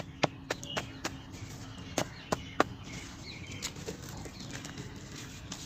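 Hard-set cement chunks being struck, a run of sharp knocks a few per second that stops about two and a half seconds in, leaving only faint small taps. The cement has set rock-hard and won't crumble.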